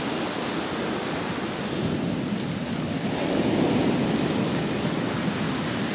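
Steady rushing of surf and wind on the microphone, with a low rumble.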